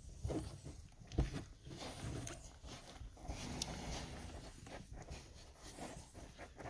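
Faint, soft sounds of five-day-old chiweenie puppies nursing and stirring against their mother, with a few low bumps.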